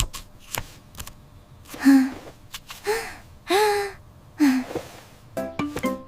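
Four short, wordless vocal exclamations like gasps from a cartoon character, about a second apart, with scattered clicks between them; music comes back near the end.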